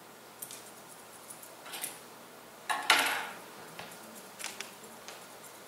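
Grooming scissors snipping through a schnauzer's tail hair in short, separate metallic snips, with one louder, longer burst of noise about three seconds in.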